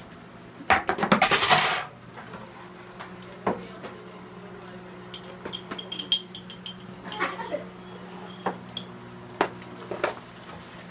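Kitchen pans and utensils clattering on a gas stove: a quick run of loud knocks about a second in as food is handled by the frying pan, then scattered metal clinks and a few single knocks near the end as a metal lid goes over the pan. A low steady hum runs underneath.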